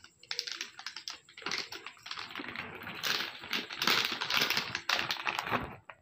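A foil-lined plastic snack packet being torn open and crinkled by hand: a dense crackling rustle that stops shortly before the end.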